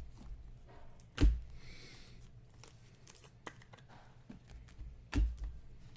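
Trading cards being handled on a table: small clicks and light rustles, with two sharper knocks, about a second in and again near five seconds in.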